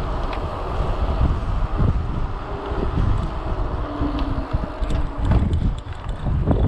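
Wind buffeting the microphone of a mountain bike rider's camera while riding along a paved road, a loud uneven rumble that rises and falls in gusts, with a few light clicks.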